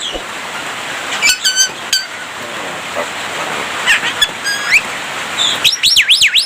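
Javan myna singing a run of clear whistles. There are short stepped whistles about a second in, rising whistles around four seconds, and a fast warbling whistle that swings up and down in pitch near the end, all over a steady hiss.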